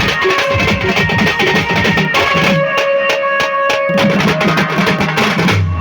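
Live band music: a fast drum beat under a melody of held notes. The low drums drop out for a couple of seconds midway while the melody and lighter percussion carry on, then come back in.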